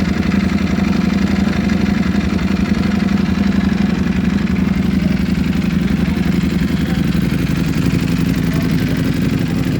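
Ducati Panigale V4 Speciale's V4 engine idling steadily through an Akrapovic full titanium racing exhaust.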